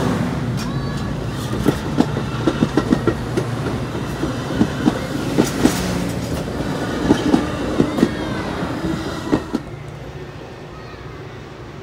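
Metra commuter train's stainless-steel bilevel passenger cars rolling past close by: a steady rumble with irregular sharp clicks as the wheels cross rail joints. The sound drops away quickly about nine or ten seconds in as the last car passes and the train draws off.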